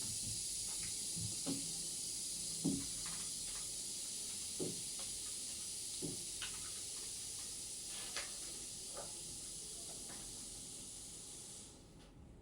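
A steady high-pitched hiss that cuts off suddenly near the end, with scattered faint light taps.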